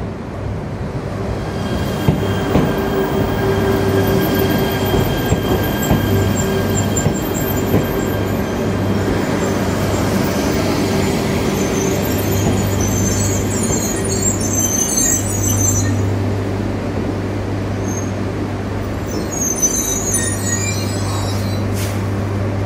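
E3 series Shinkansen train rolling slowly alongside the platform as it pulls in to stop, with a steady low hum and faint whining tones. High-pitched squealing from the running gear comes in the second half, twice.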